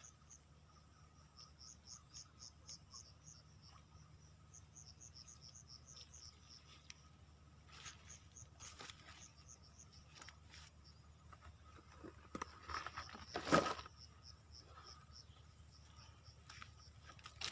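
Insects chirping in trains of short, high pulses, about five a second, which fade out after about six seconds. A louder burst of noise comes about thirteen seconds in.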